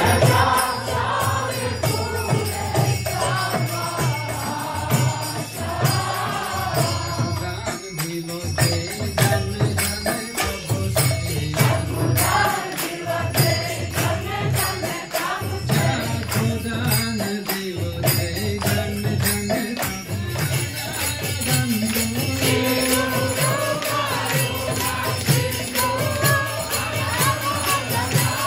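A group of devotees singing a devotional chant together in a kirtan, with small hand cymbals ringing in a steady beat throughout.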